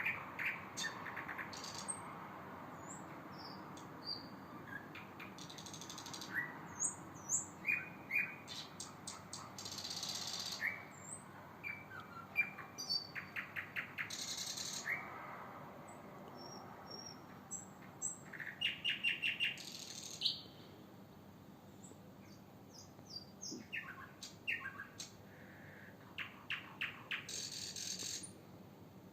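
Pre-dawn chorus of several songbirds: scattered chirps and short whistled glides, with quick trills of rapidly repeated notes and brief hissy high bursts now and then, over a faint steady background.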